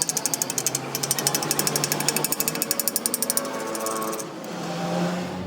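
A power tool hammering rapidly, about ten strokes a second, in two runs with a short break between, then a falling whine as it winds down and a steady low hum near the end.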